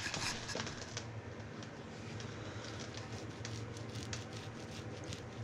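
Paintbrush working paint onto a steel excavator bucket: a run of soft, irregular brushing and dabbing ticks over a low steady hum.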